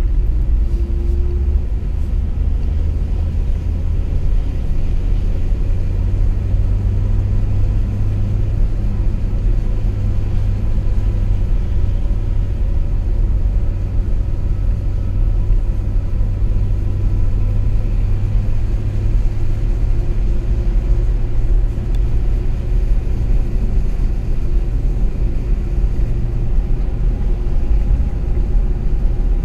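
Dodge Power Wagon's V8 engine running steadily as the truck creeps along a snow-covered track: a continuous low rumble picked up by a camera mounted on the side mirror.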